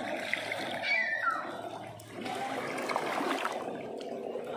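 Shallow seawater lapping and trickling over pebbles and coral rubble, with a short falling high-pitched call about a second in.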